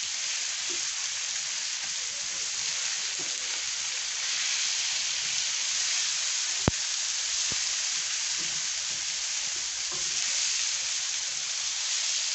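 Chicken livers frying with a steady sizzle on a flat iron tawa, stirred with a wooden spatula. A single sharp click a little past halfway, and a fainter one just after.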